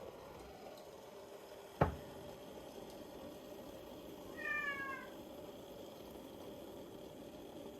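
A house cat gives one short meow, falling slightly in pitch, a little past halfway through. Earlier comes a single sharp tap, the loudest sound, over a faint steady room hum.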